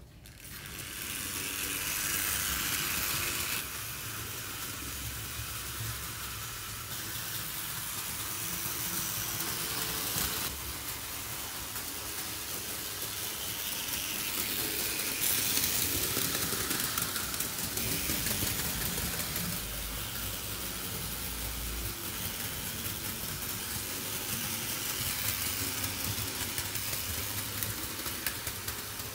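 Märklin H0 model train, an E63 electric locomotive hauling tank wagons, running on Märklin metal M-track: a steady rattle of wheels on the rails over the hum of the locomotive's motor.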